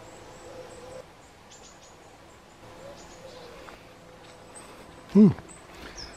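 Small birds chirping in the hedgerow, short high calls now and then over a quiet rural background. About five seconds in, one brief, loud voice-like sound falls steeply in pitch.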